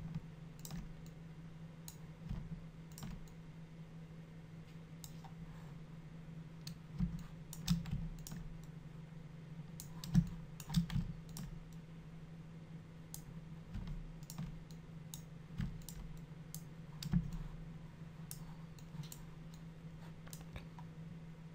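Irregular clicks of a computer mouse and keyboard being worked, a few of them louder, over a steady low hum.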